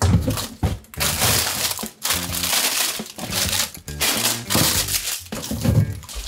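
Loud crinkling and rustling in irregular bursts over background music.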